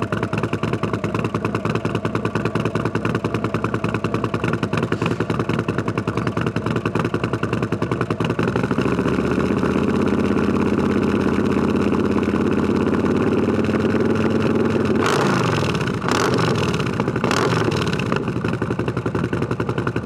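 Harley-Davidson Milwaukee-Eight Softail with a 131-cubic-inch V-twin build, idling with a heavy, pulsing beat. About eight seconds in the revs rise and hold at a higher steady speed, and near the end the throttle is blipped three times, each rev falling back quickly.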